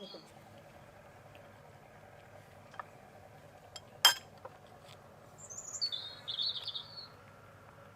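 A songbird sings a short, high-pitched warbling phrase about five and a half seconds in. A few light clicks come before it, and one sharp knock just after four seconds is the loudest sound.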